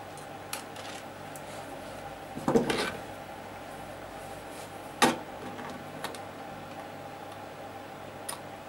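Small metal tools clinking and knocking on a workbench: a short clatter about two and a half seconds in, a sharp click about halfway through, and a few light ticks, over a steady faint hum.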